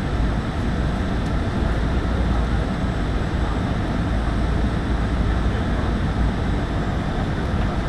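Airliner cabin noise in flight: the engines and rushing airflow make a steady, deep roar with no change in pitch.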